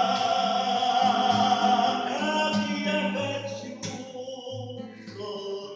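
Vocal music: a group of voices singing sustained notes together, loud at first and softening from about three seconds in.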